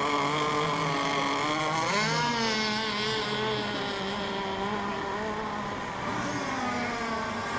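Several radio-controlled racing boats' small engines running together on the water, their pitches wavering as the boats circle before the start. One engine revs up sharply about two seconds in.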